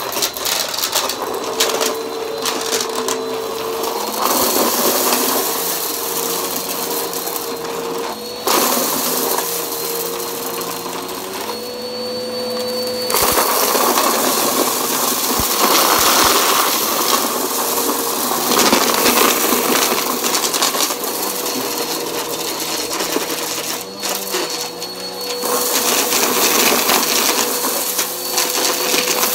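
Bissell bagless upright vacuum running on carpet, its motor holding a steady whine. Crackling and rattling come through as it sucks up a pile of lint, grit and small hard bits, rising and falling as the head passes back and forth over the pile.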